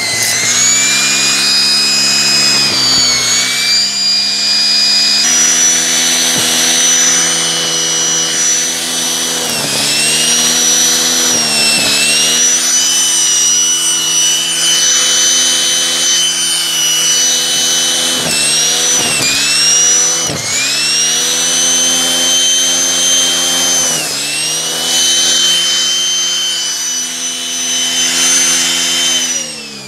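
Shark vacuum running with its turbo brush tool on the hose, sucking up fluff and carpet powder from shag carpet: a loud whine that dips in pitch and recovers again and again as the tool is worked through the pile. At the very end the pitch starts to fall as the motor winds down.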